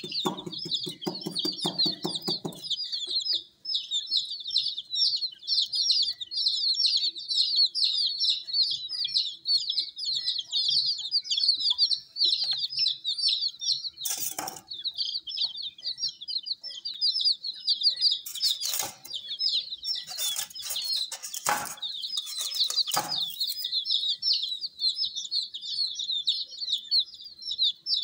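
A flock of baby chicks peeping nonstop, a dense chorus of short, high chirps. A low rumble sits under them for the first couple of seconds, and a few brief scuffing noises come in about halfway through and again a little later.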